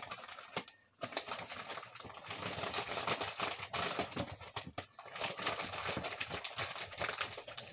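Crinkly plastic food packaging rustling and crackling as packages are pushed down into a plastic bucket, with scattered small taps and knocks.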